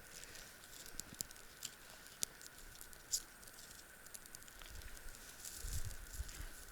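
Scattered small snaps and clicks with some rustling, typical of dry twigs and sticks being broken and handled to make kindling for a campfire.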